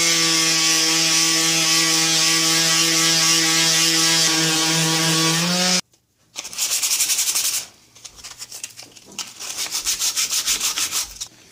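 Small electric detail sander running steadily on maple, a motor hum with sanding hiss, cutting off abruptly about six seconds in. After it, a wooden car-body piece is rubbed back and forth by hand in quick, rhythmic scraping strokes, in two runs.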